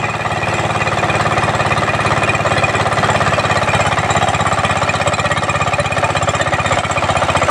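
Small single-cylinder diesel engine running with a fast, even beat, driving a centrifugal water pump that draws from a tube well about 20 feet deep. Water gushes from the pump outlet as the pump pulls full flow.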